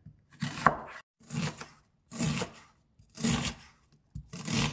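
Chef's knife slicing through a raw onion on a wooden cutting board: five unhurried cuts, about one a second.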